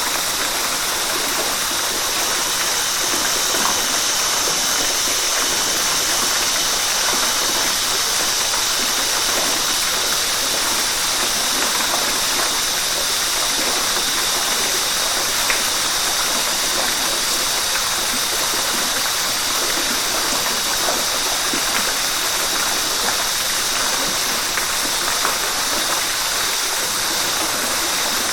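River water rushing steadily: an even, unbroken flow of water noise, brightest in the upper range.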